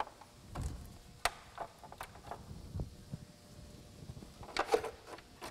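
Scattered clicks and knocks of a flathead screwdriver prying plastic radiator-side trim and its pop clip loose in a car's engine bay, with a louder cluster of sharp clicks near the end.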